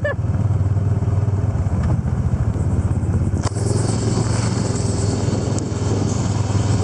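Side-by-side UTV's engine running steadily while driving along a dirt trail, heard from the open cab. A higher hiss joins about halfway through.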